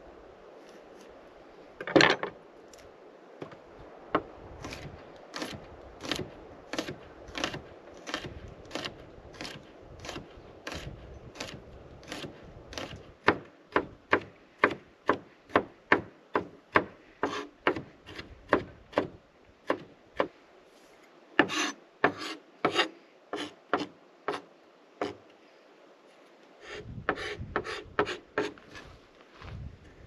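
Chef's knife chopping vegetables on a wooden cutting board: steady knocks of the blade on the board, about two a second, with one sharp loud knock about two seconds in.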